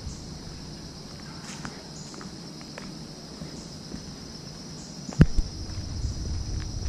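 A steady high-pitched chorus of insects, with faint footsteps of someone walking on a paved path and a single sharp knock about five seconds in.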